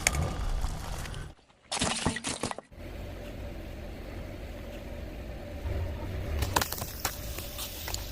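Car tyre rolling over and crushing objects: sharp cracks and crackling snaps over the low, steady rumble of the car, with a cluster of crackles about six and a half seconds in and again near the end.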